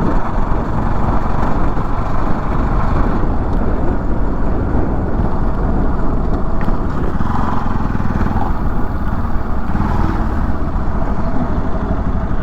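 Bajaj Pulsar NS200 motorcycle's single-cylinder engine running steadily as the bike is ridden, with a fast pulsing low rumble under wind and road noise on the microphone.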